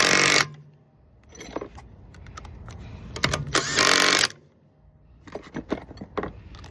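Impact wrench running in two short bursts, one right at the start and one about four seconds in, spinning lug nuts onto a wheel's studs. Small metallic clicks of lug nuts and tools being handled come between the bursts.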